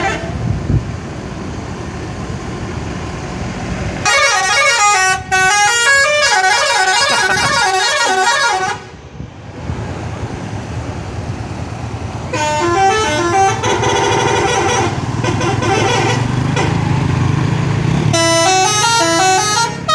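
Bus telolet horn, a multi-tone musical horn, playing a stepping melody three times: about four seconds in, about twelve seconds in and again near the end. A bus engine runs underneath.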